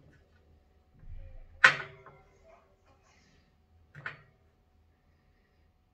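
Two sharp knocks of hard objects: a loud clack under two seconds in, followed by a brief ringing tone, then a softer knock about two seconds later. A low rumble comes just before the first knock.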